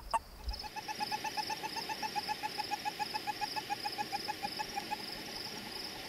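Male western toad giving a long run of rapid, evenly spaced chirps, the territorial call of a male in a breeding aggregation. A steady high insect trill goes on behind it.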